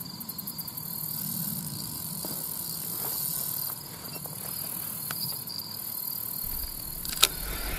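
Steady high chorus of crickets or other insects chirring in the grass. A few faint ticks come through, and there is one sharp click about seven seconds in.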